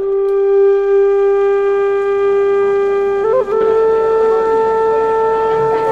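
Music: a wind instrument holds one long note, then about three seconds in moves quickly up a step to a second long held note.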